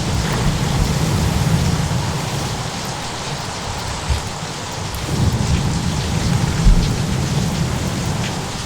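Steady heavy rain with rolling thunder: a low rumble at the start that fades after about two seconds, and a second, longer roll beginning about five seconds in.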